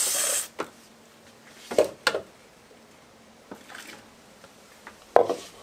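Water rinsing out a juicer's plastic pomace container stops suddenly about half a second in. A few short knocks and clatters of the plastic parts being handled follow, the sharpest near two seconds in and near the end.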